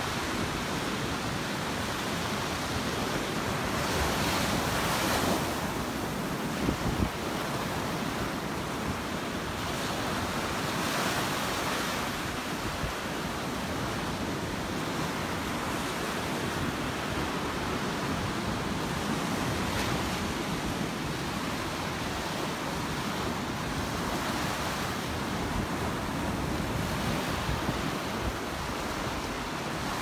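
Surf breaking on a sandy beach and washing up the shore in a steady wash that swells every few seconds, with wind buffeting the microphone. A couple of brief knocks come about seven seconds in.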